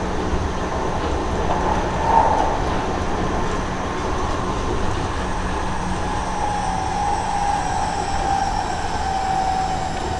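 Seibu 30000 series electric train running, heard from inside the car: a steady rumble of wheels on rail. From about six seconds in, the whine of its Hitachi two-level IGBT VVVF inverter slowly falls in pitch as the train slows.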